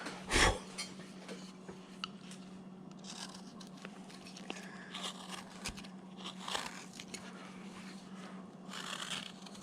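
Skew chisel paring wood by hand while rounding a carving's legs: short, scattered scraping cuts, the loudest about half a second in, over a steady low hum.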